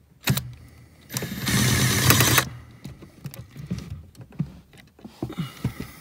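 Cordless impact driver with a T20 bit running for about a second and a half, backing out a trim-panel screw. Small clicks and rattles follow.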